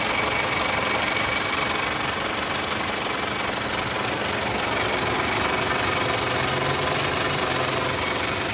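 1998 Toyota Camry's 2.2-litre four-cylinder engine idling steadily. It is running lean (code P0171) from a vacuum leak at a bad rubber intake hose.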